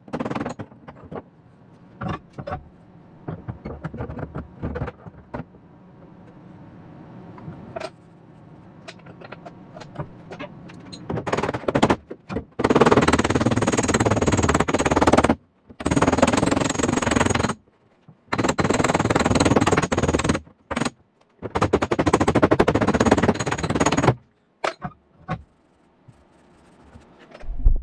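Arc welding on a car's steel quarter panel: scattered short clicks and brief arcs, then four runs of the arc, each two to three seconds long, starting and stopping abruptly with short breaks between.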